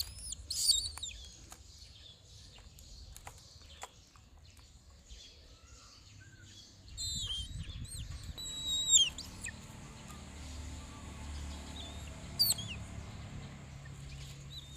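A pet bird calling in short, high-pitched chirps and whistles that glide up and down, coming in bursts at the start, around the middle and once near the end, with a few light clicks in between.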